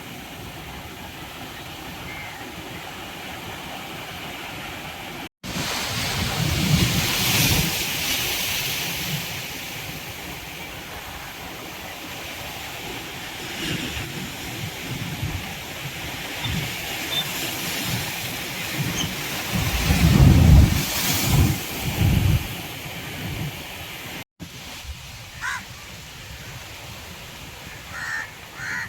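Sea waves breaking and washing up a beach, a steady wash with two louder surges. The sound drops out for an instant twice at cuts. A crow caws near the end.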